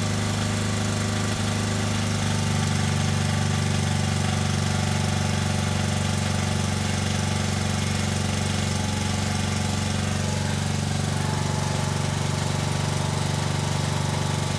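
DieHard battery charger humming steadily while fast-charging a battery, a loud, even electrical buzz.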